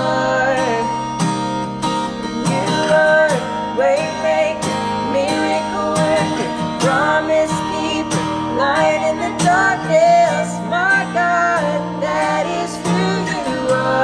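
A man and a woman singing a worship song together, accompanied by a strummed acoustic guitar.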